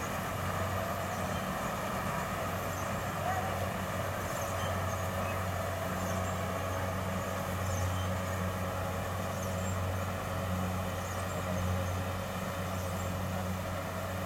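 Kubota DC60 rice combine harvester running steadily in the field, its diesel engine giving a low, even drone.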